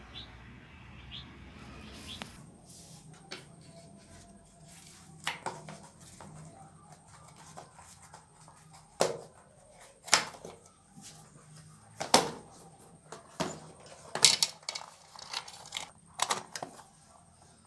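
Hands working a bicycle tyre and inner tube onto a spoked alloy wheel rim: irregular knocks, taps and rubs of rubber on metal, over a faint steady high whine.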